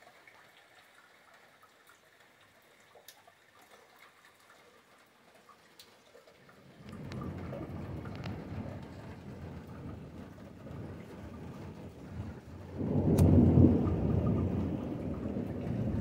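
Thunder: a low rumble sets in about halfway through, swells into a louder peal near the end, then keeps rolling. Light rain patters and drips before the rumble starts.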